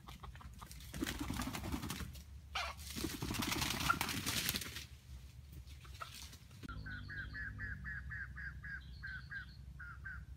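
Red junglefowl clucking in a rapid run of short, evenly repeated calls, about four a second, starting about two-thirds of the way in. Before that come two noisy bursts of rustling, about a second in and again around three seconds in.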